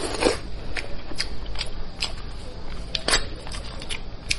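Close-miked wet clicking and crackling as gloved fingers pull meat and cartilage from a cooked head, mixed with chewing; a slightly louder squelch at the very start.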